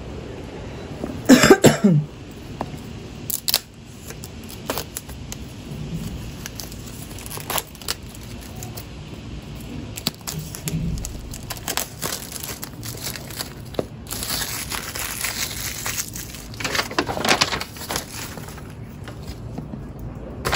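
Handling noises in a small room: scattered clicks and rustling and crinkling of packaging, with a short squeak falling in pitch about a second and a half in, the loudest sound.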